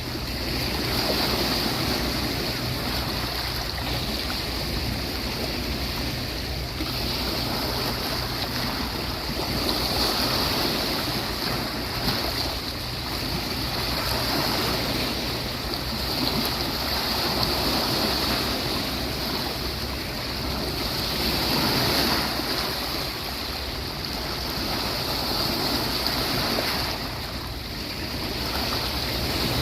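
Sea waves washing onto a beach: a continuous surf wash that swells and eases every few seconds.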